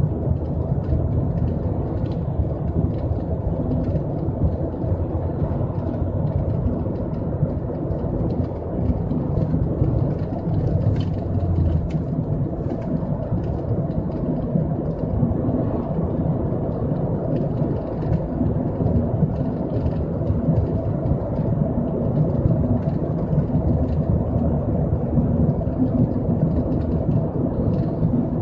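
Steady low road and engine noise inside the cabin of a moving Ford Fiesta ST.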